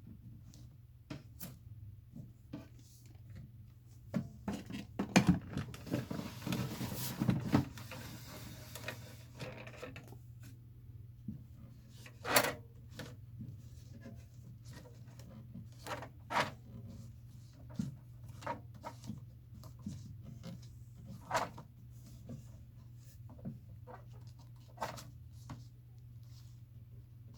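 5.25-inch floppy diskettes being handled: scattered light clicks and knocks, with a few seconds of rustling and clattering starting about four seconds in, over a steady low hum.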